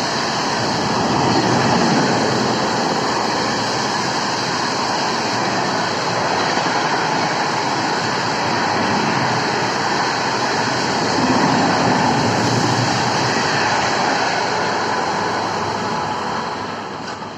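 Express train passing through the station at speed: a steady loud rush of wheels and carriages on the track, fading in the last second.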